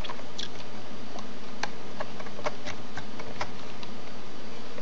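Computer keyboard keys being typed, a dozen or so irregular clicks, over a steady hiss.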